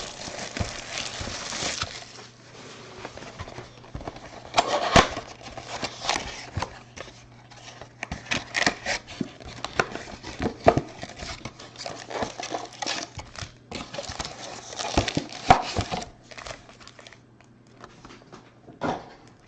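A trading-card mega box being opened by hand: plastic wrapping crinkling and tearing, with irregular clicks and rustles as the cardboard and card packs are handled. A faint steady low hum runs underneath.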